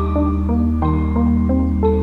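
Background music: a gentle instrumental piece with a steady low bass under a melody of short notes that change pitch several times a second.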